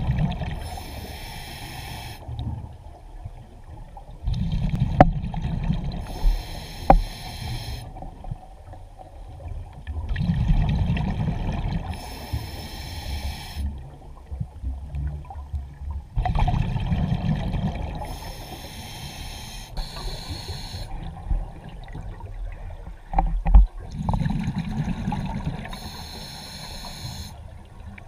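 A scuba diver breathing on a regulator underwater. A hissing inhale alternates with a low bubbling rumble of exhaled air, repeating about every six seconds, with a few sharp knocks among the exhales.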